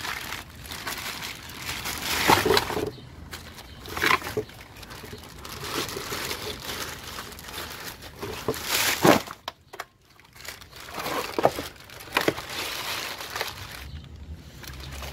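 Thin clear plastic bag crinkling and rustling in irregular handfuls, with sharp crackles, as a new brake rotor is unwrapped from it. It pauses briefly about nine and a half seconds in and is quieter near the end.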